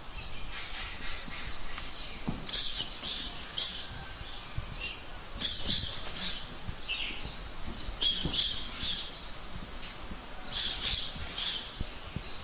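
A bird singing a short phrase of three quick high notes, repeated about every two and a half seconds.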